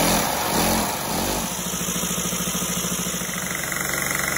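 A LEGO V-twin vacuum engine running on vacuum-cleaner suction: a steady rushing hiss with the engine's beat over it. The beat comes as a few slow pulses, then about a second and a half in settles into a fast, even rhythm.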